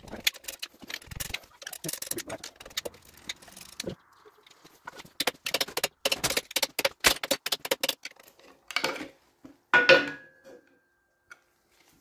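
Metal-on-metal taps and clinks as a ball-pein hammer is worked against a stuck diesel injector in the cast-iron cylinder head of a 1936 Dorman 2RB to free it, with a quick run of taps in the middle. A louder knock about ten seconds in leaves a short ringing note.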